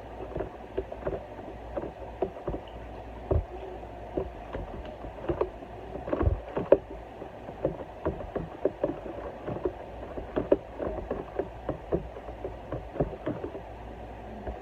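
Kitchen handling noise: irregular light clicks and knocks of utensils and containers over a steady low hum, with a couple of louder knocks about three and six seconds in.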